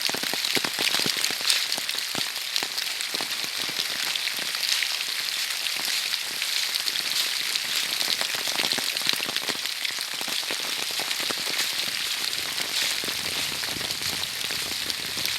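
Heavy rain falling steadily, with many close drops ticking sharply through it.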